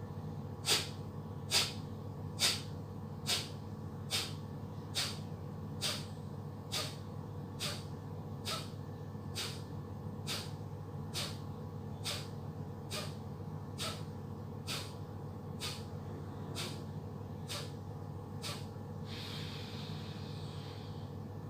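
A man doing Kapalbhati pranayama breathing: about twenty sharp, forceful exhalations through the nose, a little under one a second, each pushed out by an abdominal contraction and followed by a passive inhale, the strokes growing softer as the round goes on. Near the end they give way to one longer, deep breath that closes the round.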